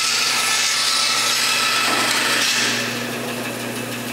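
Porter-Cable band saw cutting a straight relief cut into a wooden board, with the blade hissing through the wood for about three seconds. The cut then ends and the saw runs on with a steady hum.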